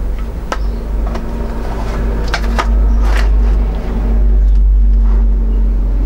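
Sharp clicks and knocks of a plastic power adapter and cable connectors being handled on a wooden bench, a few in the first three seconds. Under them a steady low hum, loudest in the second half.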